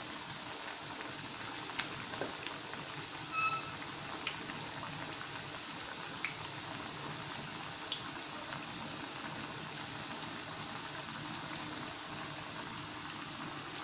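Masala vadai (chana dal fritters) deep-frying in hot oil in a pan: a steady bubbling sizzle, with a few faint pops and clicks.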